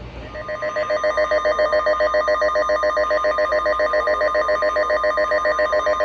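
Electronic emergency alert tone from a weather radio broadcast, a rapidly pulsing warble at about seven pulses a second that fades in over the first second and then holds steady. It is the attention signal that comes before a severe thunderstorm warning.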